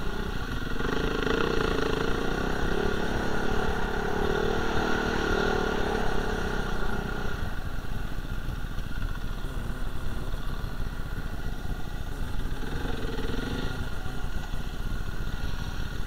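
Dirt bike engine running steadily at moderate revs over a low rumbling haze. The engine note weakens about seven seconds in and swells again briefly around thirteen seconds.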